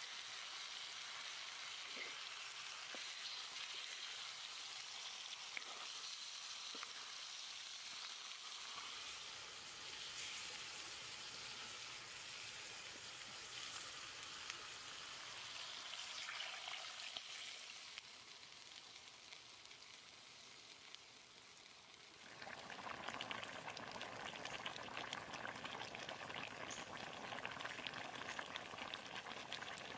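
Fish steaks and chilies frying in a black wok over a wood fire, a steady sizzle. About three-quarters of the way through the sizzling comes back louder and denser as the fish cooks in its sauce.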